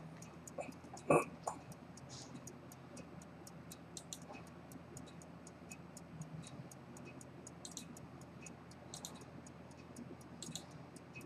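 Antique fusee-chain pocket watch ticking steadily, about five ticks a second. A single louder knock comes about a second in.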